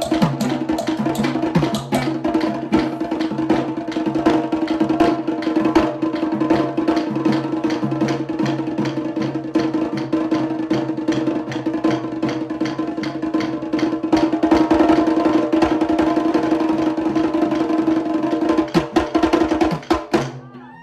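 Sri Lankan drum ensemble (Kandyan drum, thammattama, daula, yak bera and bass drum) playing a fast, dense rhythm over a steady held note, stopping abruptly near the end.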